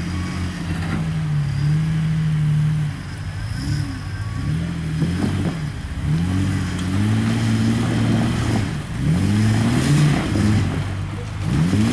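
Off-road vehicle's engine revving while rock crawling: held steady for the first few seconds, then rising and falling in pitch again and again as the throttle is worked.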